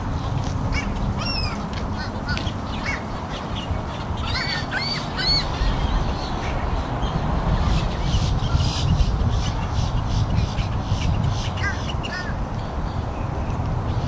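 Gulls calling from a flock. There are a few squawks about a second in, a quick run of arching calls around four to five seconds in, and two more near twelve seconds, over a steady low rumble.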